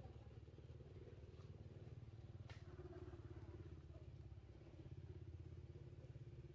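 Faint, steady low engine-like drone, with a single sharp click about two and a half seconds in.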